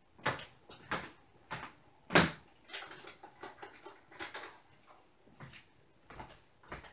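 Objects being handled and set down: about a dozen light, uneven clicks and knocks, the loudest a little over two seconds in.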